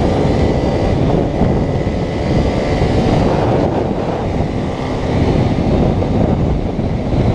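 Motorcycle running on the move, a steady loud rumble with wind noise on the microphone.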